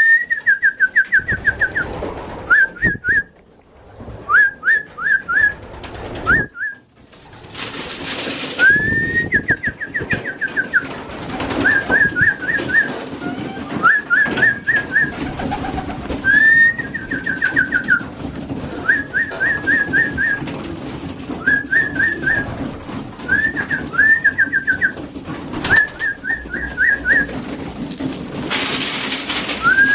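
Racing pigeons in the loft, with a high chirping call repeated every second or two: a short rising note followed by a quick run of falling chirps. A brief rushing flutter comes twice, about eight seconds in and near the end.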